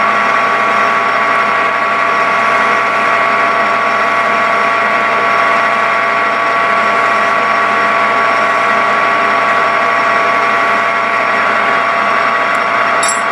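Metal lathe running steadily under power, its motor and gearing giving a steady whine made of many tones.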